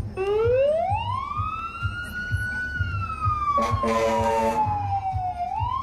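Emergency-vehicle siren wailing: it climbs steeply over about a second and a half, sinks slowly for a few seconds, then starts climbing again near the end. About midway a horn blasts for roughly a second, over a low thumping bass beat.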